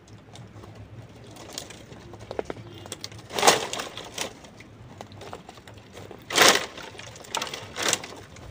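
Dry sticks and brushwood rustling and clattering as they are gathered and pushed together into a bundle, with louder crackling bursts about three and a half and six and a half seconds in.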